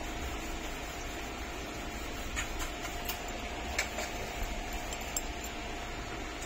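Steady background hiss with a faint constant hum, broken by a few light clicks near the middle.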